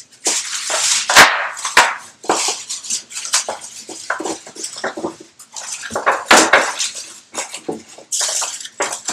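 Gloved hands rubbing and pressing seasoning into racks of raw baby back ribs in foil-lined metal pans, with wet squishing and foil crinkling, and two sharp knocks against a pan about a second in.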